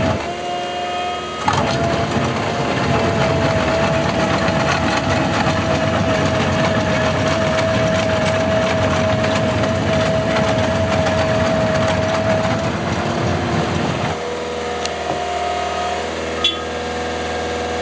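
Skid-steer loader working a hydraulic asphalt planer (cold planer) attachment: a dense grinding noise with a steady whine. About fourteen seconds in it drops to a quieter, even engine run.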